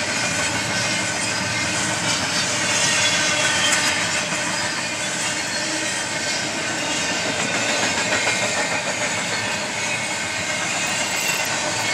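Steady rolling rumble of a passing double-stack container freight train, its wheels on the rails, heard from inside a moving car and mixed with the car's own road noise.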